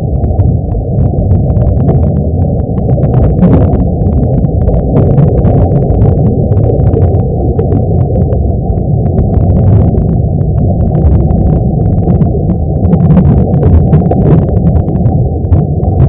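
Sonification of the Sun: spacecraft data on the Sun's vibrations turned into audible sound, heard as a loud, steady low rumble with many scattered crackles and pops.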